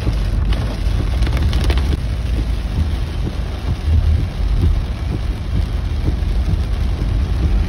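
Heavy rain falling on a car's roof and windscreen, heard from inside the moving car's cabin over a steady low rumble of the engine and the tyres on the waterlogged road.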